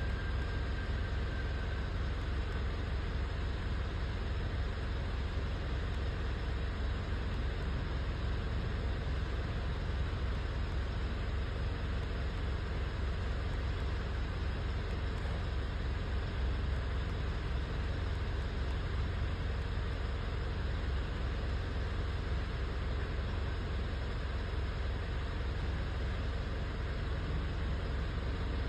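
Mitsubishi Triton engine idling steadily with a low, slightly uneven rumble; the engine has a misfire.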